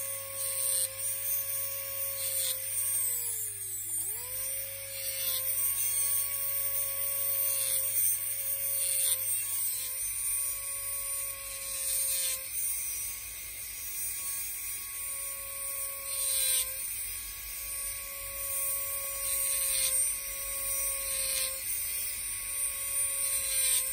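Jeweller's rotary handpiece spinning a small diamond cutting wheel, whining at a steady pitch as it cuts decorative facets into a ring made from a fork, with a hiss of the wheel on the metal. About four seconds in the motor's pitch drops sharply and recovers, and it dips briefly a few more times as the wheel bites.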